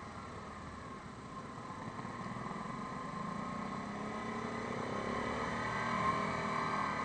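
Yamaha Grizzly 550 ATV's single-cylinder four-stroke engine running under way, its pitch rising as it accelerates from about two and a half seconds in and growing a little louder toward the end.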